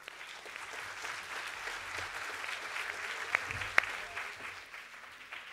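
Audience applauding, swelling quickly at the start and tapering off toward the end, with two sharp clicks a little past the middle.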